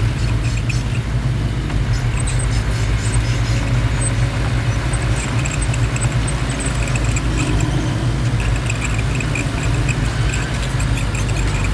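Heavy diesel engine of a working bulldozer running steadily, with faint high clinking that comes and goes.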